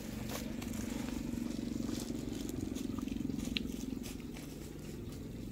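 Footsteps through grass and dry leaves, with scattered light crackles, over a steady low hum.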